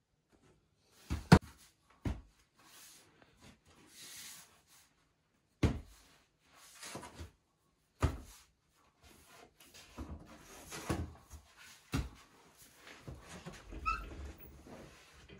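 Dough being worked by hand on a wooden bakery table: a few sharp thumps and slaps a couple of seconds apart, with soft rubbing and rustling between them.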